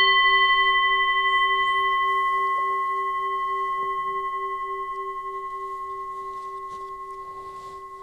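Singing bowl ringing after a single mallet strike, fading slowly. Its low tone wavers in a steady pulse and its highest overtone dies away about six seconds in. The long fading tone is the signal for the children to stop still and listen until it has died away.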